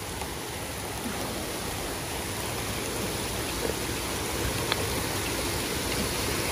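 Steady rush of water running down a water slide's run-out into a shallow splash pool.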